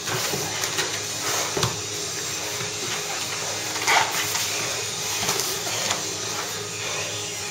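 Two grapplers scuffling on foam mats: bodies shifting and thudding, over a steady hiss, with one louder short sound about four seconds in.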